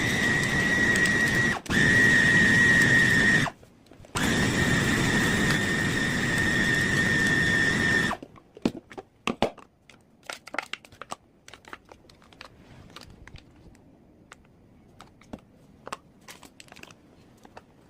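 An electric food chopper motor runs with a steady high whine while grinding beef meatball dough. It is switched on in pulses: a short break a second or so in and a pause around four seconds in, then it stops about eight seconds in. Scattered light clicks and knocks follow.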